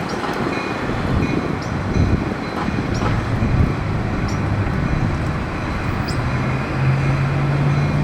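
Urban street traffic: a continuous wash of vehicle noise with a low engine drone that grows louder and steadier over the last couple of seconds.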